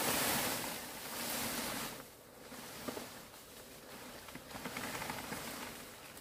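Steady rushing noise, louder for the first two seconds and then dropping back, with a few faint light clicks or knocks scattered through it.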